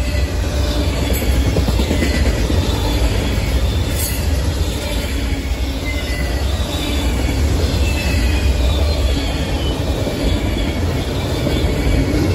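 Freight train of autorack and tank cars rolling past close by: a steady, loud rumble of steel wheels on rail, with a faint high wheel squeal over it.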